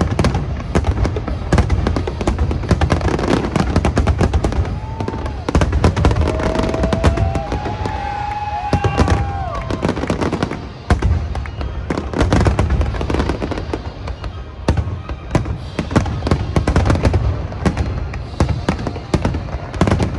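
Large aerial fireworks display: a dense, continuous run of shell bursts and crackling bangs. A few whistling tones rise and fall about five to ten seconds in.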